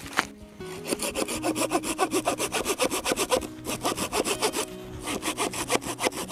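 Hand saw cutting through wood in quick back-and-forth strokes, pausing briefly twice, after a couple of sharp knocks at the start.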